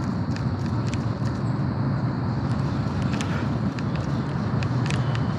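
Steady low rumble with light, irregular clicks, about two or three a second, from handling a baitcasting rod and reel while working a topwater frog lure.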